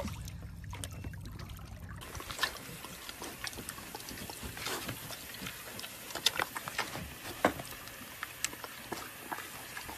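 A low steady hum with trickling water, then, from about two seconds in, a pig chomping and smacking on an ice pop, with irregular sharp clicks of its chewing.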